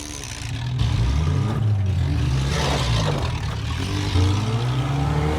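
Demolition derby car engine revving, its pitch rising and falling repeatedly as the cars manoeuvre, with a rougher, noisier stretch about halfway through.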